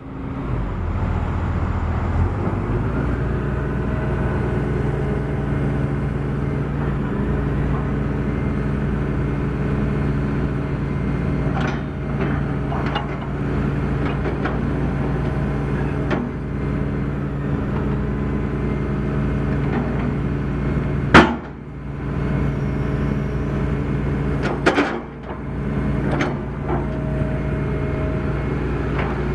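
John Deere 225D LC excavator's diesel engine running at a steady speed. A single sharp knock about two-thirds of the way through is the loudest sound, and a lighter clunk follows a few seconds later.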